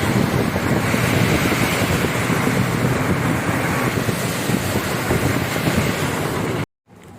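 Lorry on the move: engine and road rumble with heavy wind buffeting the microphone, cutting off suddenly near the end.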